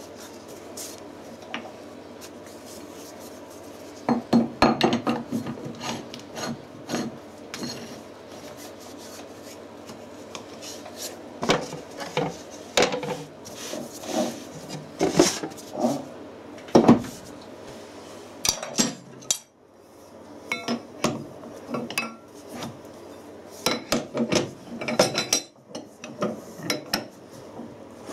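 Cast iron lathe back plate being handled and seated on the lathe's L00 spindle nose: irregular metal clunks and knocks, with rag-wiping and scraping rubs between them, and a spanner on the spindle's locking ring near the end. A low steady hum underneath stops about two-thirds of the way through.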